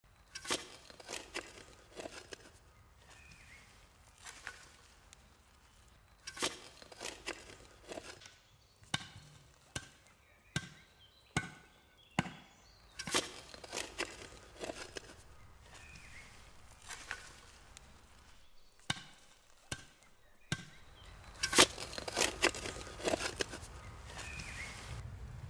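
Shovel blade chopping and cutting into forest soil: a string of sharp, uneven strikes, about one a second, coming thicker near the end.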